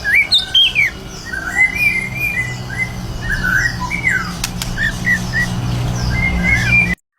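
White-rumped shama (murai batu) singing non-stop: a quick run of varied whistled notes that slide up and down, over a steady low hum. The song cuts off abruptly just before the end.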